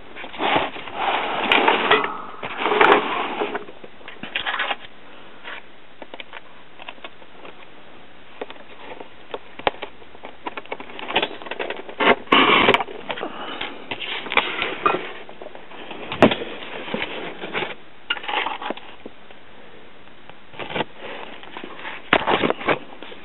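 Razor blade slitting the packing tape and plastic wrap on a cardboard shipping box: irregular scraping and rustling strokes with a few sharp clicks.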